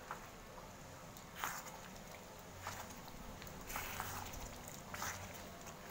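Wooden spatula stirring thick coconut-milk curry with meat in a metal wok: a short wet scrape against the pan about once a second.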